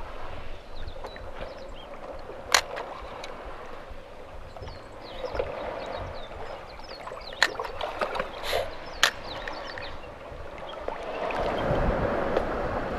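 Seawater lapping and gurgling among breakwater rocks, with a few sharp clicks. Near the end, wind buffeting on the microphone grows louder.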